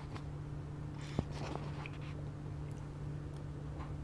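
Close-up eating sounds: a bite of sashimi and rice taken from a chirashi bowl with chopsticks, then chewed with soft mouth noises. A single light click about a second in, from the chopsticks against the bowl, over a steady low hum.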